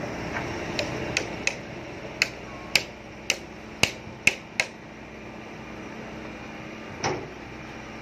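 Sumitomo asphalt paver's diesel engine running steadily. Over it come about ten sharp metallic knocks at irregular spacing in the first five seconds, and one more near the end.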